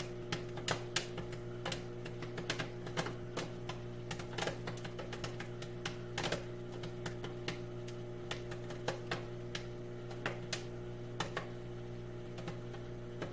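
Microwave popcorn popping inside a running microwave oven: sharp irregular pops, a few a second and thinning toward the end, over the oven's steady hum.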